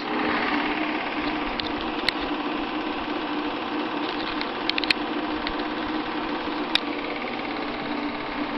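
Bell & Howell 8mm film projector running: a steady mechanical whirr and clatter of the film-advancing mechanism with a low hum, and a few sharp clicks along the way.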